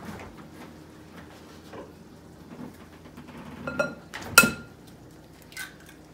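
An egg knocked against the rim of a glass mixing bowl to crack it: a light tap, then a sharper crack about four seconds in that sets the bowl ringing briefly.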